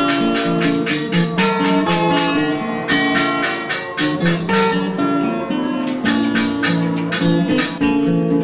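Background music: acoustic guitar strummed and plucked in a steady rhythm.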